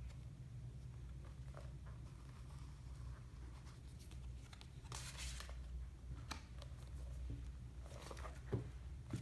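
Soft rustles and scrapes of a paperback book and its wrapping being handled, a few short bursts, the clearest about five seconds in and again near the end, over a steady low hum.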